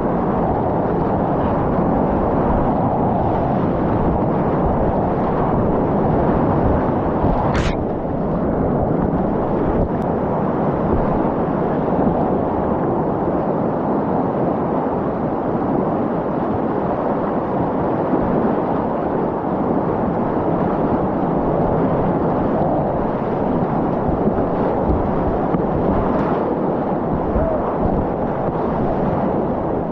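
Loud, steady rush of big-water whitewater rapids on a high-flowing river. About seven and a half seconds in there is one brief, sharp sound.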